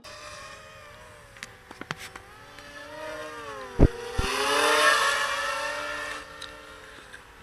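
FPV quadcopter's motors and propellers whining, the pitch dipping and rising as the throttle changes. There are a few sharp clicks, a hard knock just before four seconds in, and a rush of hissing noise for a couple of seconds after it.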